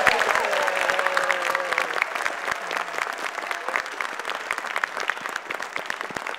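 Audience applause with dense clapping right after the music ends, loudest at the start and easing off slightly. Over the first two seconds a voice cheers in a long falling call.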